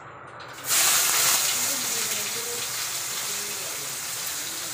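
Sliced onions dropped into hot oil in a wok, starting to sizzle loudly about a second in, then settling into a slightly quieter steady sizzle.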